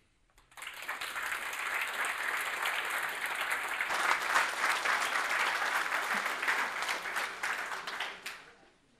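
Audience applauding: many hands clapping, starting about half a second in, holding steady, then dying away near the end.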